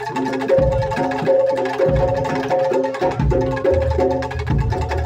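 Live Indonesian percussion-ensemble music in a gamelan style: a fast repeating figure of short pitched notes on tuned percussion over regular deep drum strokes.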